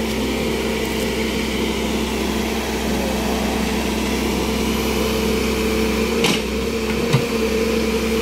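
Case backhoe loader's diesel engine running at a steady speed, with a couple of short knocks about six and seven seconds in.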